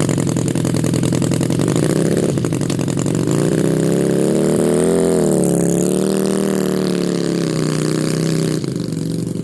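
A motor or engine running steadily with a buzzing drone. Its pitch wavers and swells up and back down around the middle, and it cuts off abruptly at the end.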